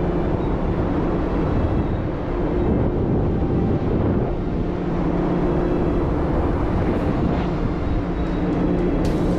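Steady, loud machinery drone on a ship's deck, with a low hum that holds one pitch. Near the end, faint ticking begins.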